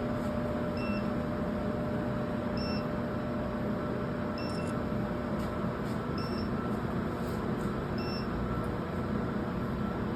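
Modular UPS cabinets running with a steady hum and cooling-fan noise, while a short electronic beep repeats about every two seconds from a UPS alarm buzzer.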